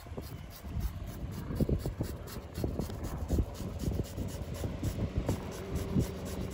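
Hand fish scaler scraping along a lingcod's skin in quick, repeated short strokes, over a steady low rumble.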